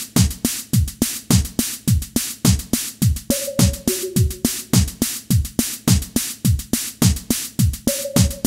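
Electronic background music with a steady drum-machine beat: deep kick-drum thuds that drop in pitch, crisp hi-hats, and two short held notes stepping down, once near the middle and again near the end.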